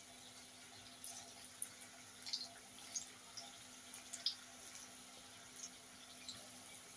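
Gram-flour (besan) bhaji batter frying in hot oil in a kadhai: a faint sizzle with scattered small pops and crackles.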